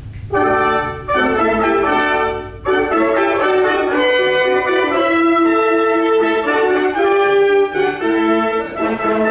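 A band's brass section playing a loud passage together: short, separated chords in the first couple of seconds, then longer held notes.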